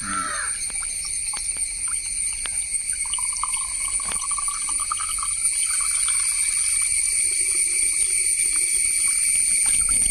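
A thin stream of tap water runs into the priming port of a KSB half-horsepower self-priming centrifugal pump, filling its casing before start-up. The trickling grows gradually louder as the casing fills.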